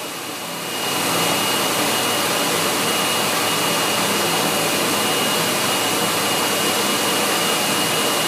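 Electric hand dryer blowing air steadily with a thin high whine, running through its timed ten-second countdown with a hand held in it. It gets louder about a second in, then holds steady.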